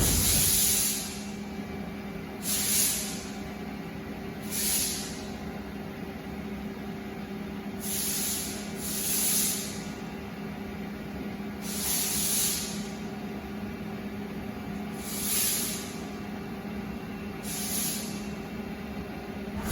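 Haas ST-30SSY CNC lathe running with a steady hum, broken every two to three seconds by short bursts of hissing.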